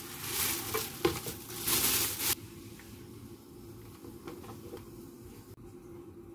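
Handling noises on a plastic cutting board: a rustling hiss with a couple of light knocks for about two seconds, then quiet with a few faint taps as a baked sweet potato is handled.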